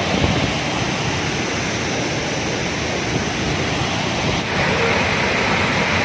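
Large waterfall in full monsoon flow, heavy water plunging over a rock ledge into a churning pool, giving a steady rushing noise. About four and a half seconds in the noise becomes slightly louder and hissier.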